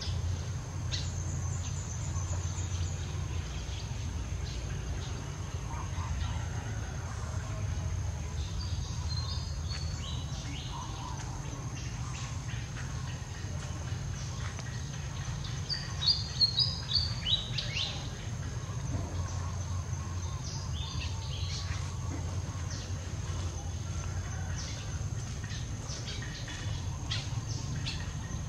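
Songbird chirping in short quick runs of high notes, several times, loudest about two-thirds of the way through, over a steady low rumble and a constant thin high whine.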